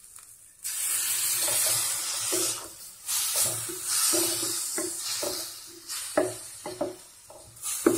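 A splash of water hitting a hot stainless steel pan of fried onion, tomato and spice masala: a loud sizzle starts suddenly about half a second in and comes back in a second surge a few seconds later. In the second half a spatula stirs the masala, with short scrapes and knocks against the pan.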